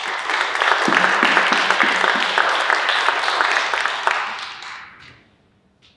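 Audience applauding a speaker as she is welcomed to the lectern. It starts at once and dies away about five seconds in.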